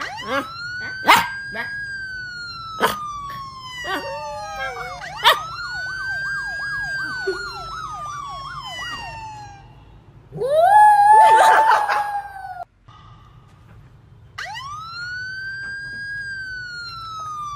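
Siren sound effect in the police-siren style: a wail that rises quickly, then falls slowly, repeated several times, with a fast warbling yelp partway through. A few sharp clicks sound in the first five seconds, and a louder, rougher wavering cry about ten seconds in.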